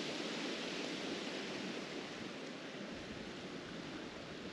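Steady hiss of small waves washing on a sandy beach, easing slightly toward the end.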